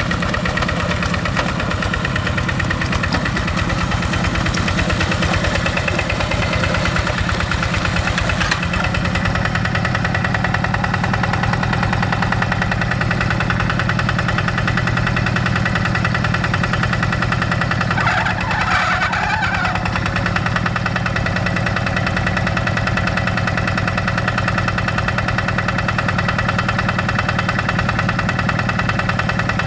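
Single-cylinder Yanmar diesel engine of a Quick G1000 hand tractor running steadily under load, with an even, rapid knocking beat from its firing.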